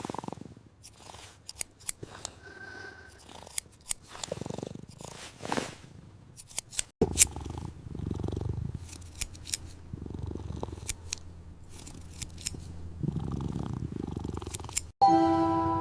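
Small clicks and swishes, then from about halfway through a cat purring steadily in a low pulsing rumble. Music starts near the end.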